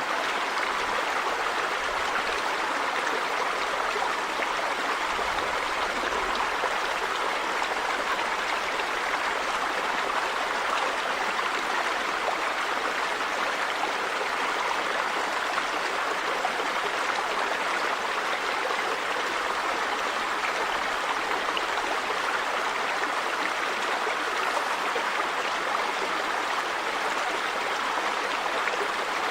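River water running steadily: an even, unbroken rushing of flowing water.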